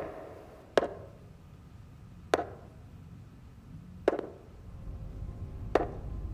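High-heel footsteps on a hard hallway floor: four slow, evenly spaced heel strikes, each ringing briefly.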